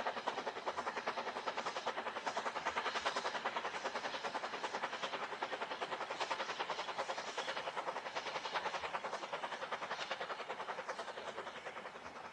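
Narrow-gauge steam locomotive working a train uphill, its exhaust beating in a fast, even rhythm of about five chuffs a second. The sound fades near the end as the train draws away.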